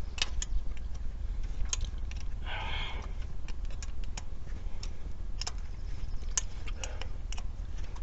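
Irregular light metallic clicks of an open-end wrench working a small fuel-rail bolt on a 3.7 V6 intake, with a short scrape about two and a half seconds in, over a steady low rumble.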